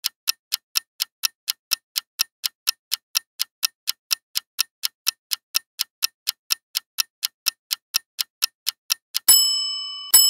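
Quiz countdown sound effect: a clock ticking fast and evenly, about four ticks a second. About nine seconds in the ticking stops and a bright bell-like ding rings out and fades, marking time up and the answer reveal. A second ding strikes just before the end.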